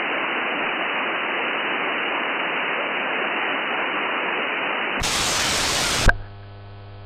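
Static hiss from a software-defined radio receiver on an empty CB channel in lower-sideband mode. About five seconds in it turns brighter and louder as the receiver is switched to AM. About a second later there is a click, and the hiss falls away to a low, steady hum as the Uniden PC-122XL's AM carrier comes on.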